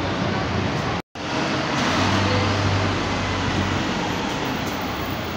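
Road traffic noise, cut off by a sudden short dropout about a second in. Then a Keio city bus's diesel engine idling with a steady low hum.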